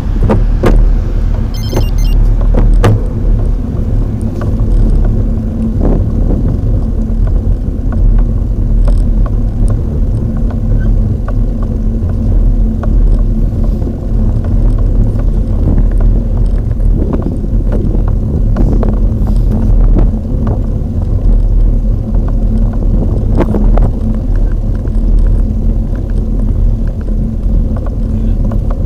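Steady low rumble of wind and road vibration picked up by a bicycle-mounted action camera as the bike climbs slowly, with a few sharp clicks and knocks scattered through it.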